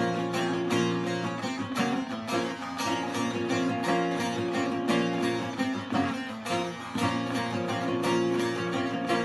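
Instrumental break of a halay türkü: bağlama and acoustic guitar playing a lively plucked melody over a steady, driving rhythm of strokes.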